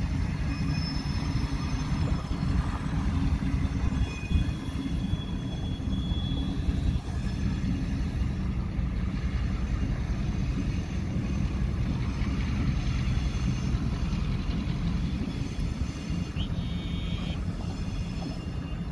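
Freight train rolling past: a steady low rumble of railcars on the rails, with a couple of brief faint wheel squeals.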